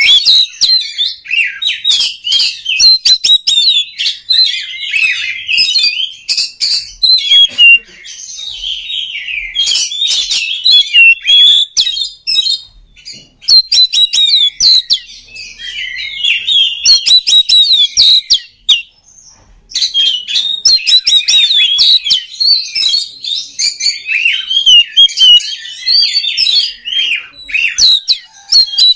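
Oriental magpie-robin (kacer) singing a loud, varied song of rapid whistles, trills and sharp clicking notes, phrase after phrase, with one pause of about a second about two-thirds of the way through.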